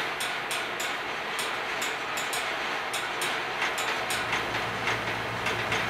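Small balls rolling along the steel-wire tracks of a rolling ball sculpture: a steady rolling rush with irregular sharp clicks and clacks, a few a second, as balls hit rails and each other.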